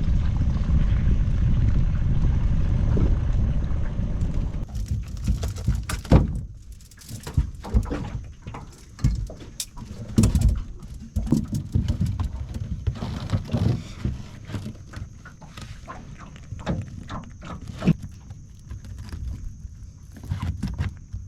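A boat's motor running steadily, cutting out about four and a half seconds in; then scattered, irregular knocks and clunks, typical of crab pots being handled in the boat.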